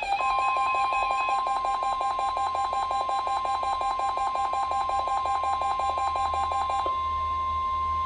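NOAA Weather Radio warning alarm tone (1050 Hz) sounding from weather radio receivers during the weekly test: one steady, high, unbroken tone. For most of it a rapid beeping pulses along with it and stops about seven seconds in.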